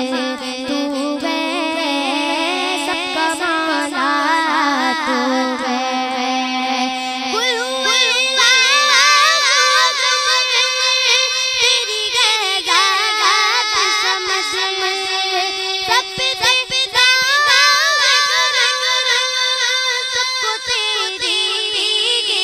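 A young girl's solo voice singing a hamd, an Urdu devotional hymn praising God, into a microphone, in long ornamented lines that waver and slide in pitch.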